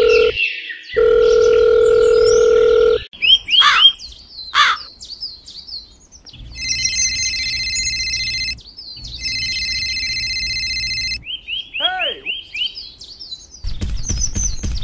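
Added sound effects: a telephone dial tone with a short break that stops about three seconds in, over birds chirping. Then a mobile phone rings in two bursts of about two seconds each, and near the end comes fast clicking at about five a second.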